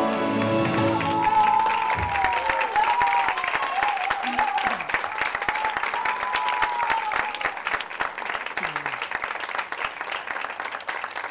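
Audience applauding, with voices calling out over the clapping for a few seconds; the applause gradually thins out toward the end. The last notes of the music die away in the first second.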